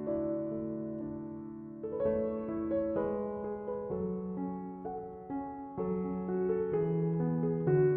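Background piano music: a slow, gentle melody over held chords, with new notes struck about once a second.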